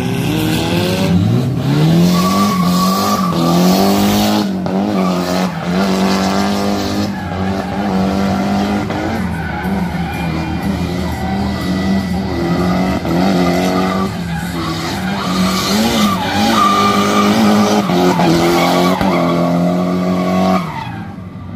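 Drift car engine revving hard about a second in and held at high revs through a long slide, with small dips in revs, while the tyres skid and squeal. Near the end the engine note drops away.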